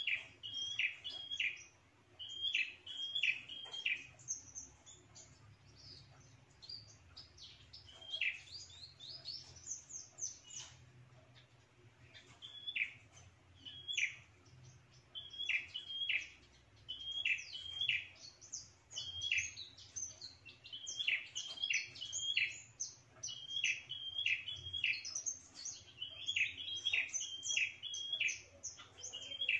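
Prenjak (prinia-type songbird) calling in rapid bursts of three to five sharp, loud chips, separated by short pauses and mixed with thinner, higher twitters. This is the natural territorial call that provokes rival prenjak to come in and drive it off, which is why it is used as a lure call.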